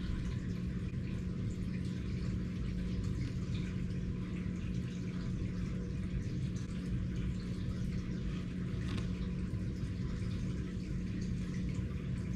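Steady low hum under a faint hiss of background room noise, with no distinct events.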